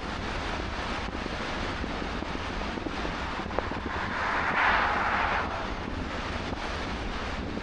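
Steady road and wind noise from a car driving at speed, with a low rumble underneath. A little past four seconds in, an oncoming car passes with a brief rush of noise that swells and fades.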